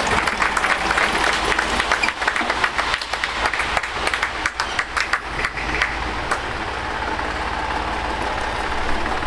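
Clapping for about the first six seconds, over the steady running of a 1960 Fordson Dexta tractor's three-cylinder diesel engine as it pulls away at low speed.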